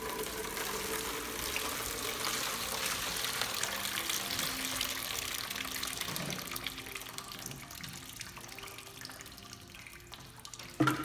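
Water pouring and running through a homemade channel into a bucket, a steady splashing flow that gradually fades toward the end.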